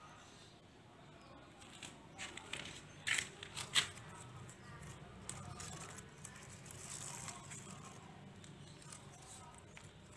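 Faint handling noises: a few sharp crackles and clicks about three to four seconds in, then soft rustling as a hand brushes the leaves of a potted spider plant.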